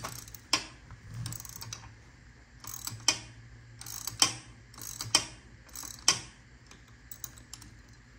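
Ratchet wrench clicking in short back-and-forth strokes, about one a second, as it tightens a nylon locking nut onto a parking brake cable's threaded end. The nut is the wrong thread pitch (10 mm × 1.5 on a 10 mm × 1.25 thread), so it is binding and damaging the threads.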